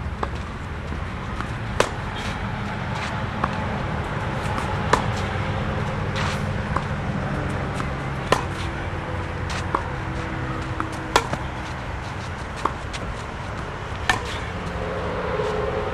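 Tennis rally: sharp pops of racket strings hitting the ball about every one and a half seconds, louder hits from the near player about every three seconds alternating with fainter ones from the far end, over a steady low rumble.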